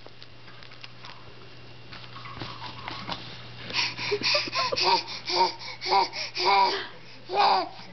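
Six-month-old baby giving a run of short, high-pitched voice bursts, about three a second, beginning about halfway in, over a faint steady low hum.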